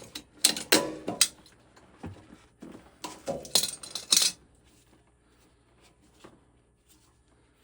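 Hard tools and parts clinking and clattering as they are handled: a cluster of sharp knocks in the first second or so and another about three to four seconds in, stopping after that.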